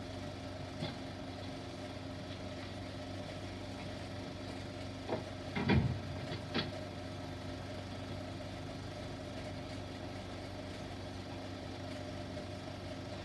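Steady low hum and hiss of an old 16mm optical film soundtrack. A few short knocks and a heavier thump come about five to six and a half seconds in.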